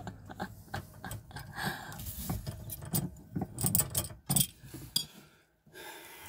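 Stainless steel rigging fittings clinking and scraping in the hands as a threaded stud is turned against the new turnbuckle part, irregular small clicks that stop after about four and a half seconds. The threads won't engage: the part is threaded the wrong way.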